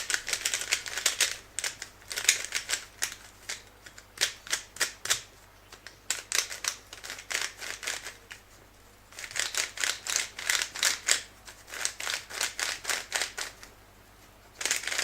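A DaYan speed cube being turned quickly by hand: fast runs of plastic clicks as its layers turn, in several bursts with short pauses. The turning works in freshly applied silicone lubricant.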